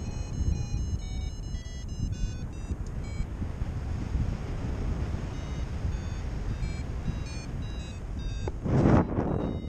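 Paragliding variometer beeping in short, high-pitched tones over steady wind rumble on the microphone. The beeps signal that the glider is climbing in lift. Near the end a stronger gust buffets the microphone and is the loudest sound.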